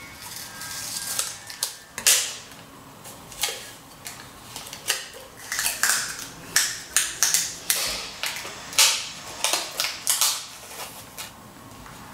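Clear adhesive tape being pulled off its roll and wound around a paper-wrapped plastic syringe barrel: an irregular series of sharp, crackling rips.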